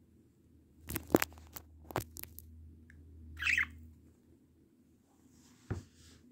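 A few sharp clicks and taps in two clusters, a short chirp from a budgerigar about three and a half seconds in, and a single low thump near the end.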